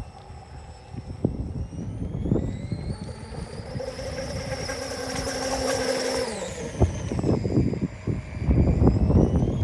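Scale model Miss England speedboat running at speed, its electric-driven V-drive gears giving a whine that climbs in pitch over a couple of seconds, holds, then falls away about six seconds in. Wind buffeting on the microphone grows loud near the end.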